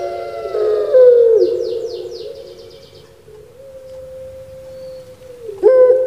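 Puter pelung, a ringneck dove (Streptopelia risoria), cooing. A loud, wavering coo falls away about a second and a half in, then a long, quieter note is held, and a new loud coo starts near the end.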